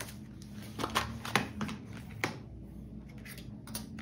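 Small cutters snipping the thin motor wires of a toy drone, heard as a few short, sharp snips and clicks about a second in and again near two seconds in, over a faint low hum.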